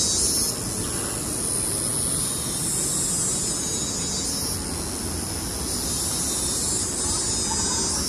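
Wind rumbling on the microphone, under a high, steady insect buzz that swells and fades in waves.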